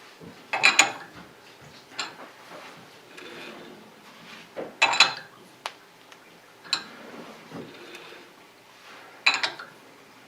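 Four-jaw lathe chuck being adjusted with a chuck key while a workpiece is dialed in: about half a dozen irregular metallic clinks and clanks, a second or more apart.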